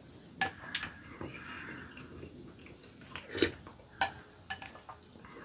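Eating sounds: a wooden spoon scraping and tapping in a glass bowl of chicken porridge, with soft chewing between scattered light clicks.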